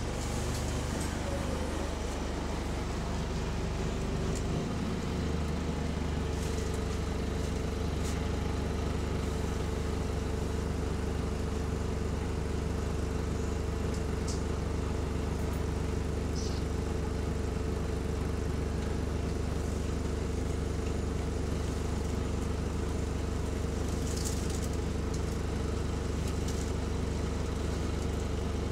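Inside a Go-Ahead London Alexander Dennis Enviro200 single-deck bus, XFE-converted with a hydraulic cooling fan, standing still with its diesel engine idling: a steady low hum, joined about five seconds in by a steady whine. There are a few faint clicks.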